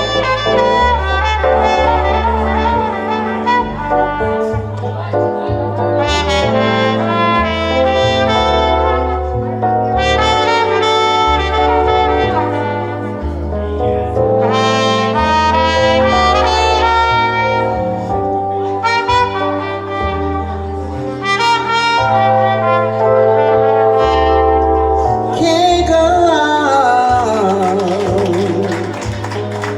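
A band playing a slow jazz-blues instrumental break: a horn solo over bass and rhythm section, with a long falling slide near the end.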